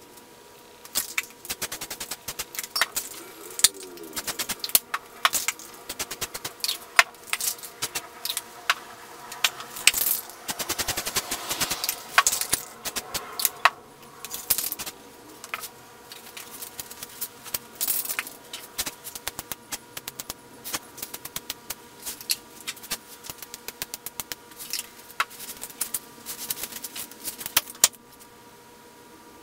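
An aerosol spray-paint can being shaken, its mixing ball rattling in quick, irregular runs of metallic clicks that stop near the end.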